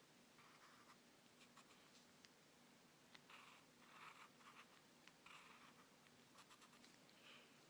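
Faint scratching of a pen or pencil drawing on paper, in several short strokes with pauses between them and a few light clicks.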